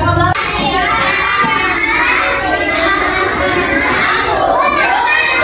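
A class of young children singing together.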